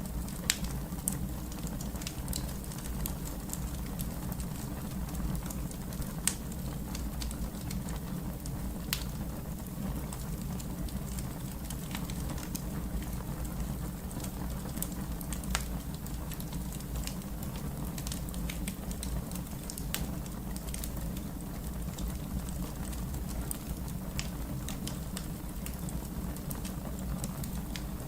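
Fire crackling: a steady low rumble with scattered sharp pops and snaps, a few of them louder in the first ten seconds.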